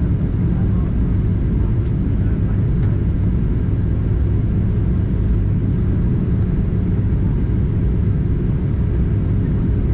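Steady cabin rumble inside a Boeing 737-800 on approach: airflow and the CFM56 jet engines, with a faint steady hum above the low roar.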